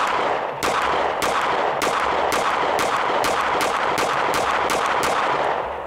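A 9mm SIG Sauer P365 X Macro Comp pistol fired in a fast string of about a dozen shots, roughly two a second, with echo ringing between them.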